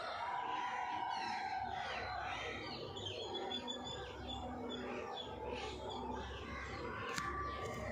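Many birds chirping and calling over one another in a busy chorus of short notes that swoop up and down in pitch. There are a couple of sharp clicks near the end.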